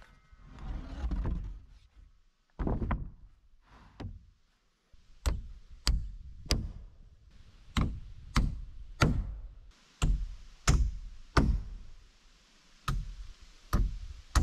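Hammer driving nails into wooden boards: a few scattered blows, then a steady run of sharp strikes, mostly in threes about half a second apart.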